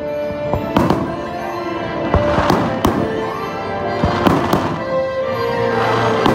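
Aerial fireworks shells bursting, about five sharp bangs with crackling after them, over the show's soundtrack music.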